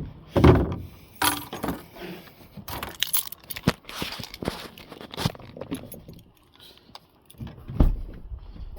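Irregular clinking and clattering of small hard objects being handled, with scattered knocks and one heavier thump near the end.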